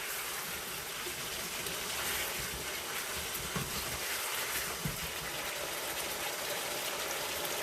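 Chicken adobo sauce of soy sauce and vinegar sizzling steadily in the pot over high heat as it reduces and caramelizes.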